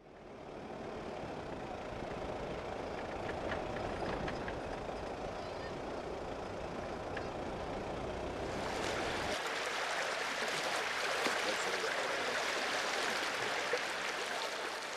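Steady outdoor noise of a flooded road with a low vehicle-engine rumble underneath. From about eight and a half seconds in, it gives way to a louder, brighter, even rush of floodwater.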